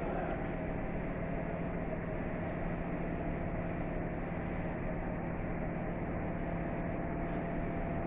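Steady hum and rush of boiler-room machinery running continuously, a low steady tone and a higher one over an even rushing noise.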